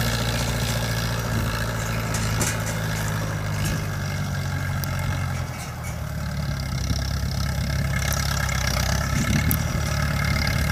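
Shibaura SD4000 tractor's diesel engine running steadily as it pulls a trailer loaded with sacks of rice, its note dipping briefly about halfway through, then carrying on.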